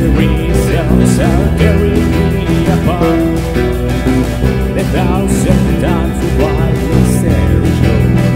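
Post-punk band playing live: electric guitar from a Squier Vintage Modified Jazzmaster, electric bass and a drum kit with cymbals, a steady full-band passage with bending guitar lines over a sustained bass.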